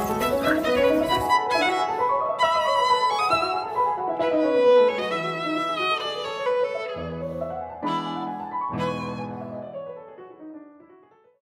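Background music: a violin melody over piano chords, fading out near the end.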